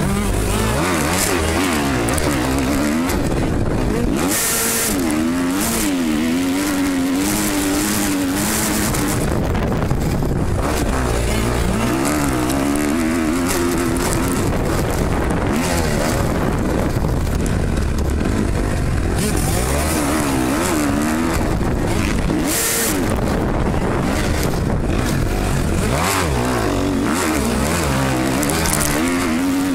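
Motocross dirt bike engine heard up close from the bike itself, revving up and dropping back over and over as it is ridden hard around the track.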